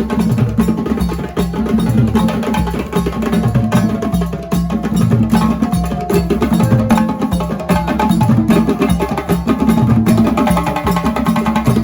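Percussion-driven music: drums played in a steady, repeating rhythm with sharp clicking strokes over them.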